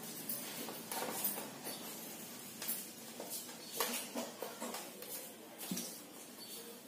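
A whiteboard eraser wiping across a whiteboard: faint rubbing strokes with scattered light knocks of the eraser block against the board.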